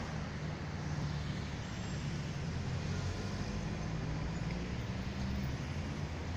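Steady low rumble of street traffic with a constant hiss of city ambience.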